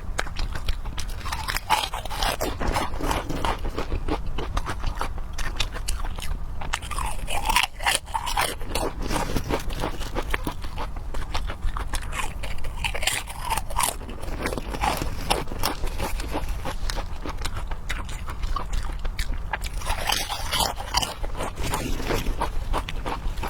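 Close-miked eating sounds: a person biting and chewing food, a dense run of small clicks and crunches.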